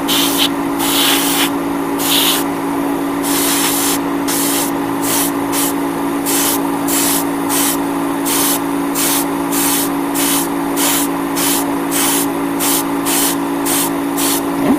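Iwata Neo airbrush spraying paint in hissing bursts as the trigger is pulled and released: a few longer bursts at first, then short even ones about twice a second. A steady low hum runs underneath.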